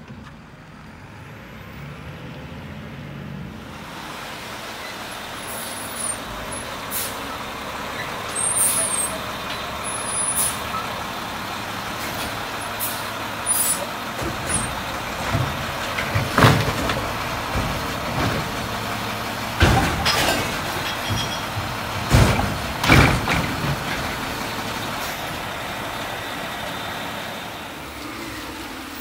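Mack garbage truck running and working: steady engine noise with a few short high squeals, then four loud bangs in the second half.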